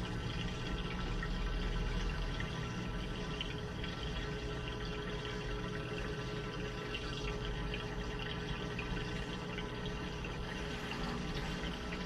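Washing machine taking in water during its wash cycle: a steady rush of running water over a low steady hum.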